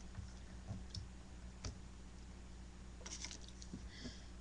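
Faint, scattered small clicks and soft rustling over a steady low hum, with two brief soft hisses near the end.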